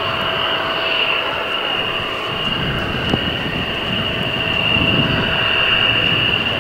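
Jet aircraft engine noise: a steady roar with a high whine held at one pitch, the low rumble thickening a couple of seconds in.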